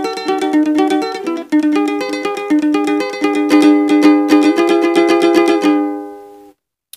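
Three-string kentrung tuned G-B-E, strummed in a fast, even keroncong pattern with chord changes. Near the end the strumming stops and the last chord rings out and fades.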